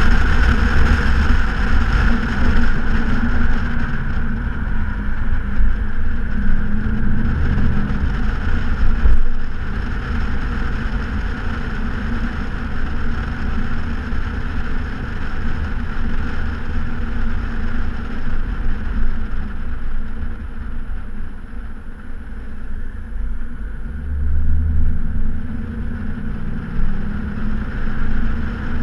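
A 2014 Ford Mustang GT's 5.0-litre V8 running through a straight-pipe exhaust while cruising, a steady deep drone with wind and road noise on the outside-mounted microphone. The engine note swells briefly late on, as if the throttle is opened a little.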